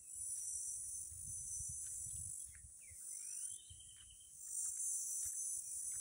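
Insects buzzing in a high, steady chorus that eases off for a second or two midway, with a bird's short rising whistle and a held whistled note near the middle, over a low rumble.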